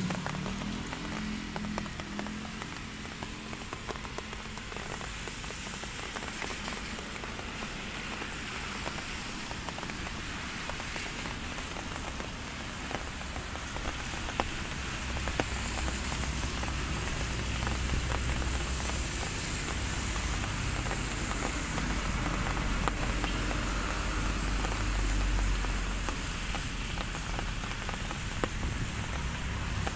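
Light rain (drizzle) pattering, with many small scattered drop ticks over a steady hiss. A low rumble builds underneath from about halfway through.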